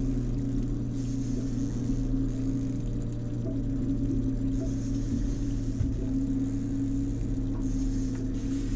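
Outboard motor running steadily at low trolling speed, an even, unchanging hum.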